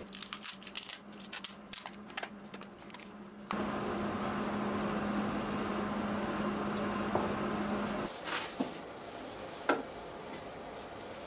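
Thin plastic cup being peeled and torn off a set plaster casting mold: crinkling, crackling handling noise. A few seconds in, a steady mechanical hum starts abruptly and runs for about four seconds before stopping, followed by a couple of light clicks.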